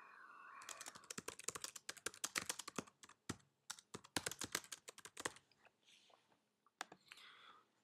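Typing on a computer keyboard: a quick run of key clicks lasting about four and a half seconds, then a few scattered keystrokes near the end.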